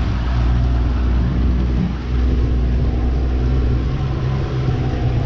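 90 hp Yamaha outboard motor running steadily at trolling speed, a constant low engine hum.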